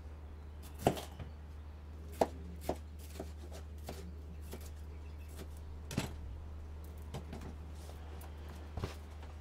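A chef's knife slicing a yellow bell pepper into strips on a plastic cutting board: irregular, spaced knocks of the blade against the board.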